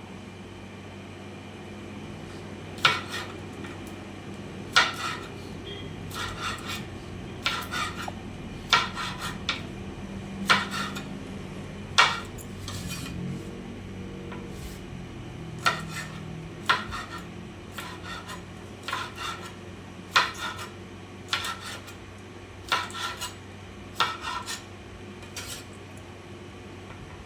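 Kitchen knife slicing snap beans, striking the cutting surface in sharp, irregular knocks about once a second, over a steady low hum.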